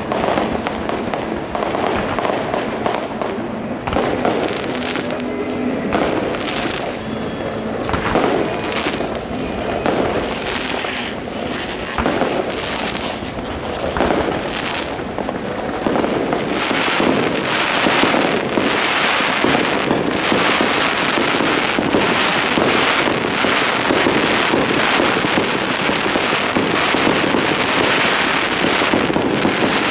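Aerial fireworks shells bursting in quick succession with sharp bangs and crackling stars, growing denser and more continuous about halfway through.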